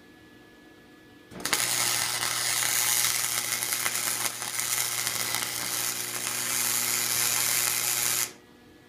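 Electric arc welder welding a piece of rebar onto a steel billet: the arc strikes about a second and a half in and crackles and sizzles steadily with a low electrical hum for about seven seconds, then cuts off suddenly.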